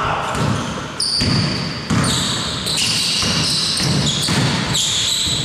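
Basketball bouncing on the court during live play, a thud every half second to a second, with high-pitched sneaker squeaks over it.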